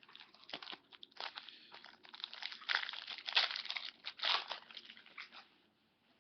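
Hockey card pack wrapper crinkling as it is torn open and handled: a run of irregular crackles, loudest in the middle, fading out shortly before the end.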